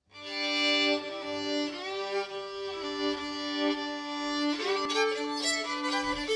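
Background music led by a violin, fading in at the start and playing long held notes that give way to quicker notes after about four and a half seconds.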